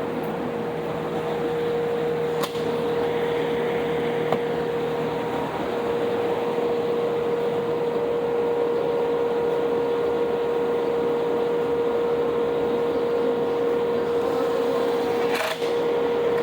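Steady mechanical hum with one constant, unchanging whine under a noisy wash, like a machine running at a fixed speed; a few sharp clicks, the clearest near the end.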